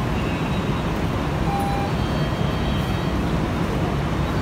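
Steady street traffic noise: a dense, even rumble of passing vehicles, with a short high tone about a second and a half in.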